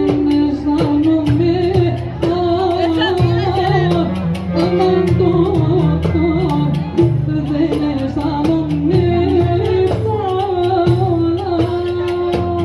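Folk music from a band: a woman sings an ornamented, wavering melody over a lower accompanying line and steady percussion strokes.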